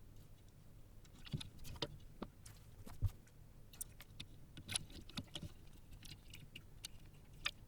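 Scattered small clicks and taps from hand-soldering through-hole resistors into a circuit board, the sharpest about three seconds in, over a low steady hum.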